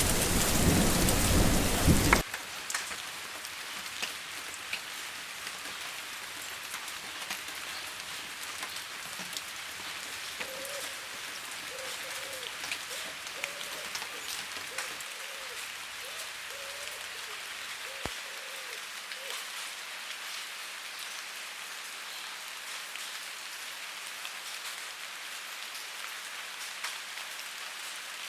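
Rain falling onto a gutter and a hard surface, with a dense steady patter of drops. For the first two seconds it is much louder, with a low rumble, then it cuts off abruptly. The rest is an even, quieter rain hiss with scattered drip ticks.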